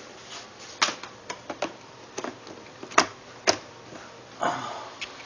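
Sharp plastic clicks and knocks, about six at uneven intervals, then a short scraping rustle, as the ATM's power cable and plug are handled at a wall power strip.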